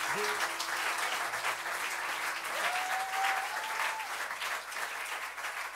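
Concert audience applauding at the end of a show, the clapping slowly thinning. One long held call from the crowd rises over it about two and a half seconds in.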